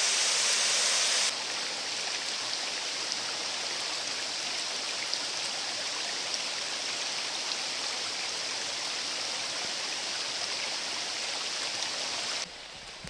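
Water pouring down a small stepped waterfall, then, about a second in, the quieter, steady rush of a shallow mountain creek running over rocks. The sound drops again just before the end.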